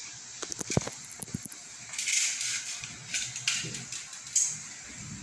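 Light plastic clicks and taps from handling a spring-powered airsoft M4A1 rifle while loading a BB: a quick run of clicks about half a second in, a short hiss about two seconds in, then a few scattered clicks, the sharpest just after four seconds.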